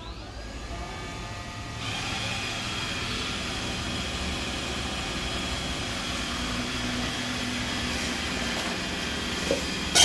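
iRobot Roomba 961 robot vacuum running as it cleans the floor: a steady motor hum and whine from its vacuum fan and brushes, growing louder about two seconds in.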